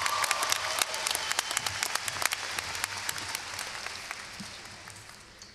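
Audience applauding, the clapping dying away gradually over several seconds.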